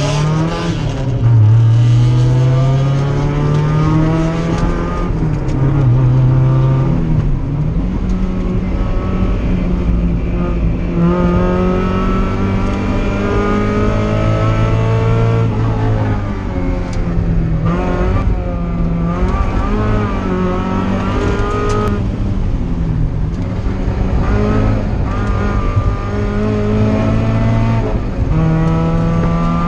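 Mazda Miata race car's engine at full throttle on track, heard from inside the cabin: the engine note climbs repeatedly under acceleration and drops back at each gear change and braking zone.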